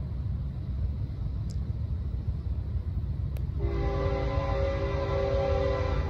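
Locomotive's multi-chime air horn sounding one long chord, starting a little past halfway, over a steady low rumble.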